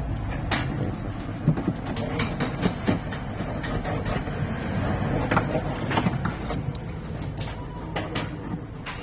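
Irregular metallic clicks and knocks of hand tools working the lock mechanism and its metal bracket inside an open car door, over a steady low rumble.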